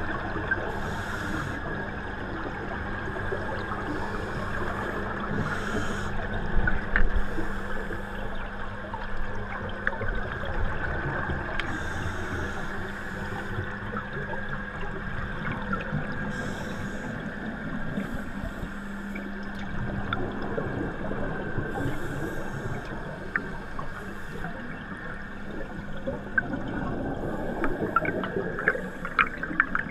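Scuba divers breathing through regulators, heard underwater: exhaled bubbles rush out in bursts about every five seconds, over a steady low hum and a constant watery hiss.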